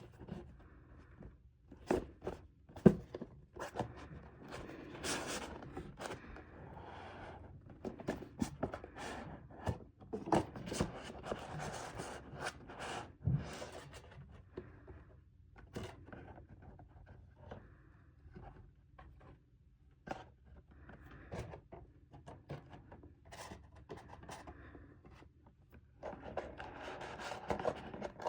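Handling noise from unboxing a watch box and its packaging: an irregular run of clicks, knocks, scrapes and rustles, with a sharp knock about three seconds in.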